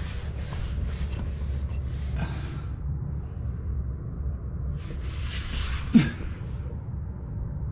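Hands working a rubber exhaust hanger onto its mount with silicone lubricant. Two spells of hissing, rubbing noise sound over a steady low rumble, with a short, loud squeak about six seconds in.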